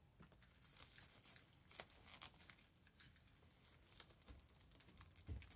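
Faint crinkling and small crackles of bubble wrap and packing tape being picked at and pulled loose from a doll.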